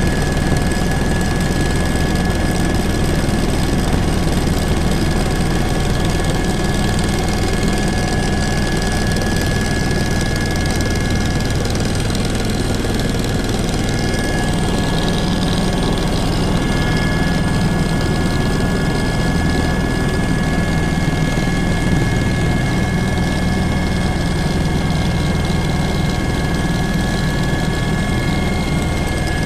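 Helicopter in flight: a steady engine and rotor drone with a constant whine, and a second, higher whining tone joining a little past halfway.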